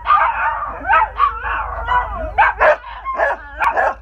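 Several small dogs howling and yipping together in short, overlapping cries that bend in pitch, set off by the sound of a train horn.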